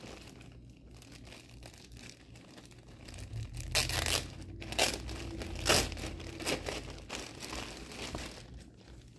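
Clear plastic packaging bag crinkling and rustling as it is handled and pulled open, with a few louder crackles in the middle.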